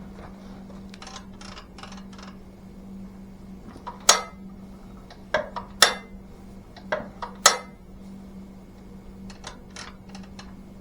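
Metal tools and small engine parts clinking and tapping during hand reassembly: a string of sharp clinks, the loudest from about four to eight seconds in, over a steady low hum.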